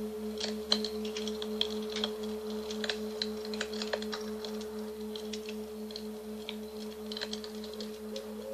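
Singing bowl ringing with a long sustained low tone that pulses evenly a few times a second, and a steady higher overtone. Scattered short clicks and crackles sound over it.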